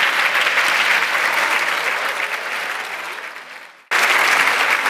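Audience applauding, fading away about three seconds in, then breaking off abruptly; after a short gap the applause starts again at full strength.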